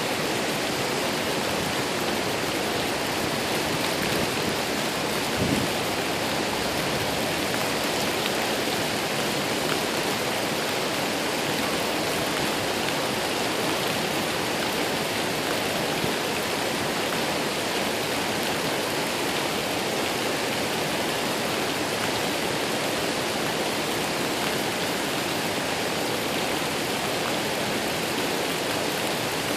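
Waterfall: the steady rush of falling water, with a brief low thump about five seconds in.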